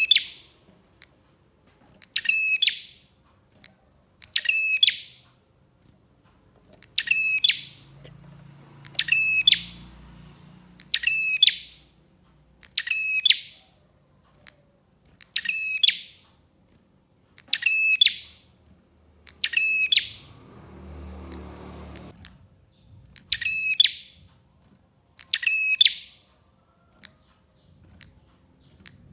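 Prenjak (bar-winged prinia) calling: the same short, sharp high phrase repeated about every two seconds. A brief low rumbling noise fills a gap about two-thirds of the way through.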